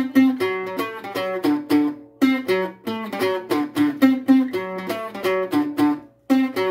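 Bajo sexto picking a lead (requinto) line of single plucked notes in the D7 position. The short phrase is played again and again, with brief breaks about two seconds in and near the end.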